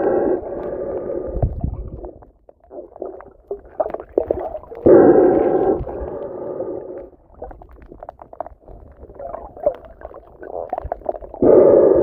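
Underwater sound of a snorkeler breathing: a hollow, pitched groaning tone about a second long comes every six seconds or so, with irregular crackling and water movement in between.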